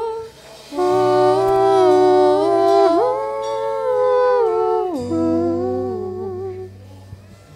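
Slow worship music: a voice holding long wordless 'ooh' notes, stepping up about three seconds in and sliding down about five seconds in, over sustained keyboard chords that fade out near the end.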